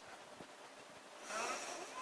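A woman snoring: a quiet pause, then one snore with a wavering pitch that starts a little past halfway.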